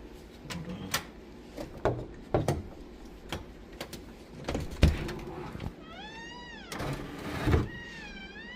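A domestic cat meowing twice in the second half, each call rising and then falling in pitch. Before that come scattered knocks and clicks, the loudest a sharp knock about five seconds in.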